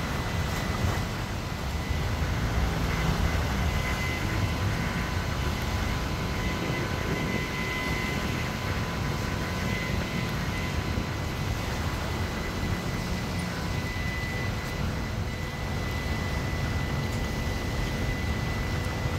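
Boat engines running steadily: a low rumble with a faint, steady high whine over it.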